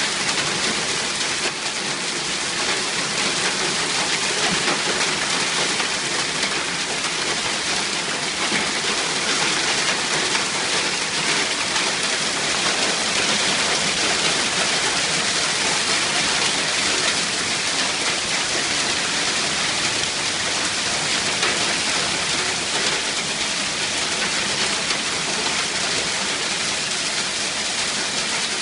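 Hailstorm: hail and heavy rain pelting down in a dense, steady downpour of countless small impacts.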